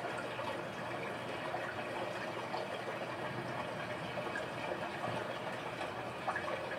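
Steady rain, with water running and dripping from leaky gutters; a few sharper drips stand out near the end.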